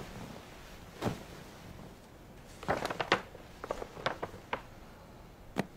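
A paper gift bag rustling and a hard jewellery box being handled and lifted out of it: a scattered series of short rustles and taps, most of them bunched in the middle.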